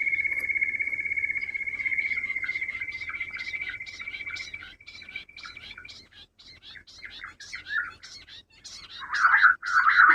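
Quail calling: a rapid pulsing trill held for several seconds that fades out about six seconds in, over many short high chirps, with a couple of louder calls near the end.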